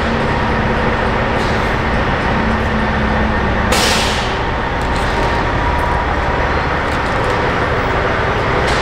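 Hyundai HX480L excavator's diesel engine running steadily under load, with one short, sharp hiss about four seconds in that fades within half a second.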